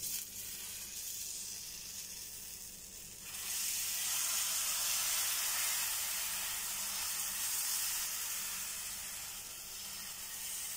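Vegetable batter sizzling as it is poured from a bowl onto a hot tawa griddle. The sizzle grows louder about three seconds in and then holds steady.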